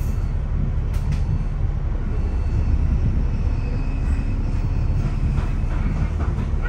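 Steady low rumble of a double-decker bus's engine and road noise heard from inside the cabin, with a couple of faint clicks or rattles about a second in.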